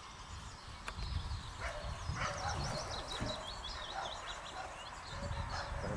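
A dog barking in a few short, separate barks, with small birds twittering in the background.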